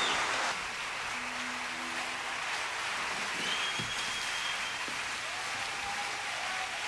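Theatre audience applauding steadily after a flamenco guitar concert number, a little louder for the first half second.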